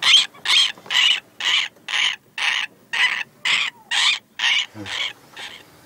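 Newly hatched cormorant chick calling over and over, short rasping calls about two a second, growing weaker near the end.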